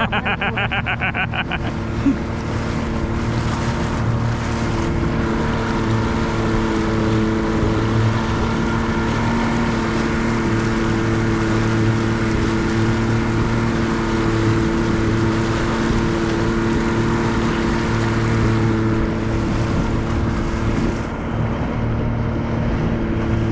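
Boat's outboard motor running steadily under way, a constant engine hum, with wind and water rushing past the hull.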